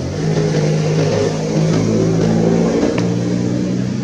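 A motor vehicle engine running, a low steady hum whose pitch shifts a few times, coming up at the start and fading away just after.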